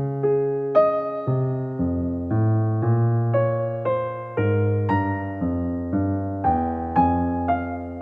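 Slow, gentle piano music: melody notes struck about twice a second over held low bass notes.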